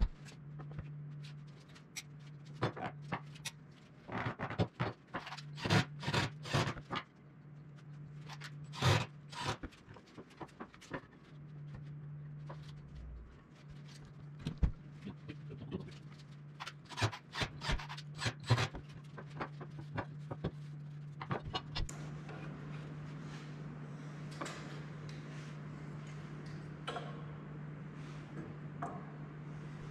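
Scattered clicks, taps and knocks of wood and metal bar clamps being handled and set on a wooden frame on a bench, over a steady low hum. The knocking thins out after about two-thirds of the way, leaving mostly the hum.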